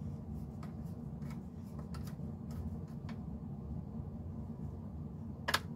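Small screwdriver turning the shell screw of a Lionel 2350 EP5 toy locomotive: scattered faint clicks and ticks, with one sharper click about five and a half seconds in, over a low steady hum.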